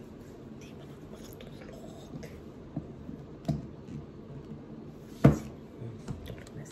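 Quiet room hiss with a few soft clicks, then one sharp knock about five seconds in.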